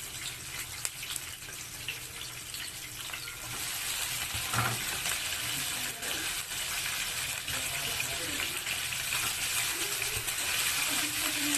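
Oil sizzling in a frying pan; about four and a half seconds in, chicken feet go into the hot oil with a thud and the sizzle turns louder and stays that way.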